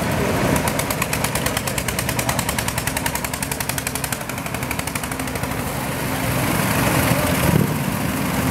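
Vintage tractor engine running past at low speed with a rapid, even knocking beat. Other vehicle engines run underneath.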